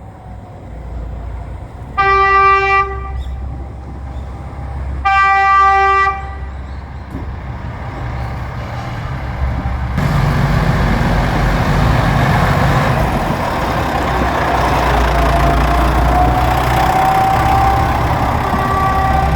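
JR Shikoku 2000 series diesel limited-express railcar sounding its horn twice, a short blast and then a slightly longer one. Its diesel engines then grow louder as it draws near and passes, with the rolling noise of the wheels on the rails.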